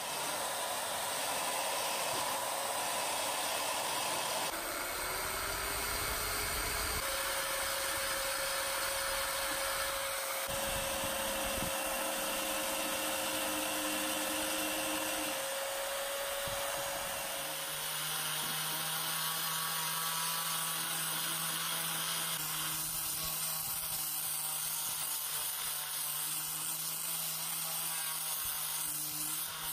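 High-speed electric rotary tool whining as its small burr grinds the dimpled steel of an axe head, its pitch shifting abruptly a few times; a little past halfway it gives way to an angle grinder with a sanding disc running steadily against the steel.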